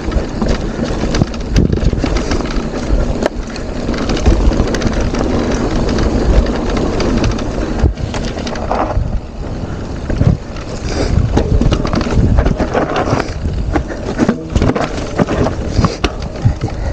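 Mountain bike riding down a singletrack: the rattle and crunch of tyres and frame over the trail, with frequent sharp knocks, under heavy wind noise on the microphone.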